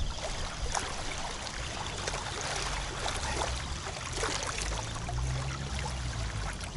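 Wind-driven water splashing and lapping, with gusts of wind buffeting the microphone in a low rumble that swells about five seconds in.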